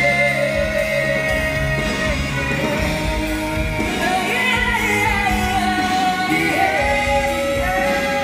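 Live pop song sung on stage over band backing, with long held sung notes, recorded from the audience seats.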